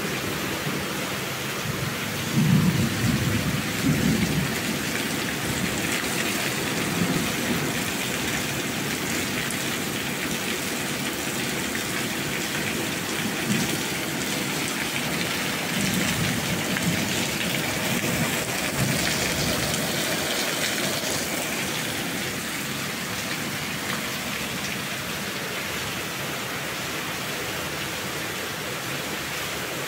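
Steady rain with low rumbles of thunder now and then. After about twenty seconds the rumbles stop and only the rain goes on.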